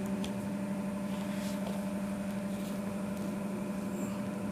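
Steady low hum from a running motor or appliance, with a few faint clicks.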